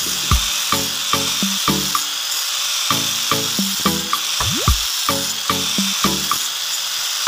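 Doliz BA 770-C grinder with a sanding disc running against a wooden spatula, a steady high-pitched hiss of sanding. Background music with quick repeating low notes plays over it, with a rising sweep about four and a half seconds in.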